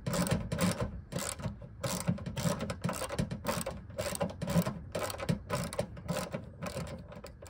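Quarter-inch drive ratchet with a 10 mm socket clicking in quick short strokes, about four a second, as a hood hinge bolt is backed out.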